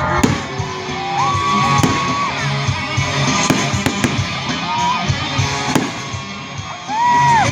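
Music playing during a fireworks display, with fireworks going off as several sharp bangs scattered through it.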